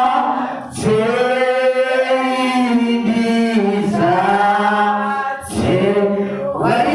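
Congregation singing a hymn without instruments, long held notes in a slow unison melody.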